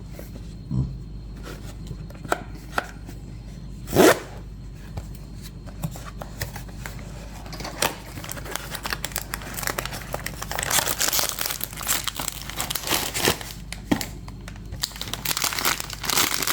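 Blind-box packaging being opened by hand: a few light clicks and a sharp knock about four seconds in, then continuous crinkling and tearing of the wrapper from about ten seconds on.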